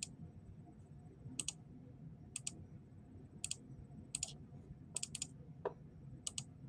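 Computer mouse buttons clicking, about seven clicks at irregular intervals, each a quick pair of snaps, over a low steady room hum.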